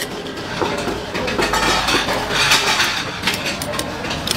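A spicy Thai shrimp salad of raw shrimp, chillies, lime and sauce being tossed and mixed with a utensil in a bowl: wet sloshing and rustling with scattered clinks of the utensil against the bowl.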